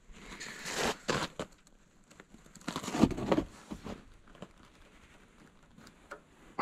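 Plow marker rod being forced down into its metal holder: two bouts of scraping and crunching, about a second in and about three seconds in, the second louder, then a few faint ticks.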